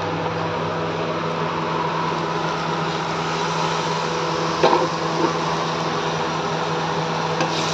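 Steady mechanical hum and hiss of a running motor, with a few light clicks of a slotted metal spoon against the aluminium kadhai about halfway through and near the end.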